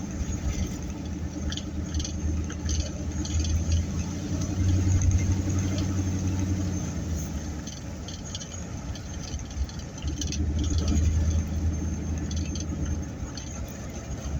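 Car interior while driving: a steady low engine and road rumble that swells and eases a couple of times, with scattered light clicks and rattles.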